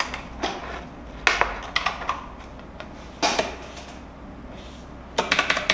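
A few separate knocks and clicks, then near the end a fast run of keystrokes on a Tecware Phantom RGB mechanical keyboard.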